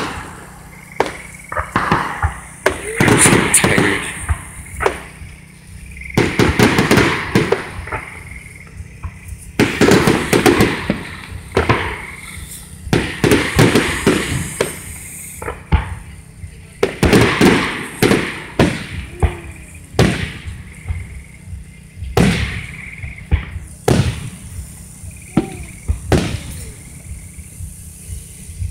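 Aerial firework shells bursting: clusters of loud bangs followed by crackling, a new volley every three to four seconds.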